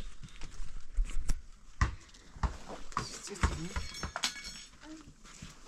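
Scattered knocks and handling noises as a large bag is worked by hand on stony ground, with a few short animal calls in the background.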